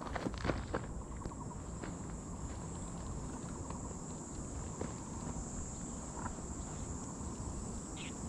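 Insects trilling steadily, a continuous high-pitched buzz, with a few light clicks in the first second.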